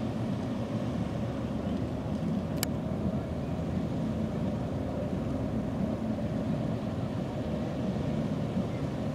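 Steady low drone of ship engines, with faint steady tones and no change in level. A single sharp click about two and a half seconds in.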